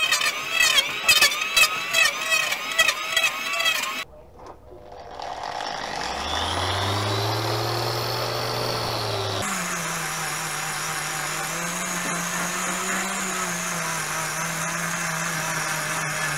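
Electric angle grinder sanding a wooden bench seat plank. For the first few seconds its pitch dips and recovers over and over as it is pressed into the wood. It then spins up and runs steadily with a sanding disc, and about halfway through the sound changes to a steadier, lower run with an abrasive bristle brush.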